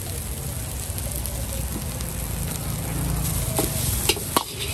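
Food sizzling as it cooks, with a few sharp knocks near the end.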